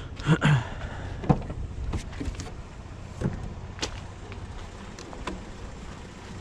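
A handful of separate knocks and clunks, about six spread over the seconds, from scrap and junk being shifted on a curbside pile, over a low steady background.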